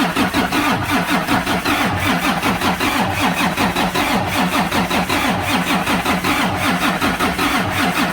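Cummins ISX heavy-duty diesel being cranked by its starter, a steady rhythmic churn that never catches. With fuel fed straight to the pump it still won't start, which points to a failed fuel pump.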